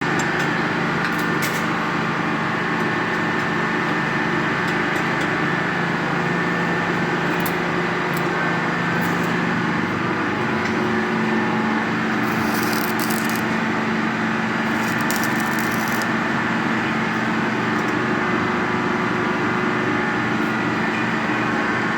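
A motor running steadily with a constant hum, with a few short bursts of hiss about halfway through.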